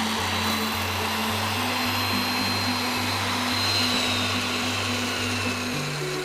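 Kakunomi, a Japanese hollow-chisel mortiser, running steadily with a motor whine as its square chisel bores a mortise through a timber beam. Background music with a pulsing bass line plays underneath.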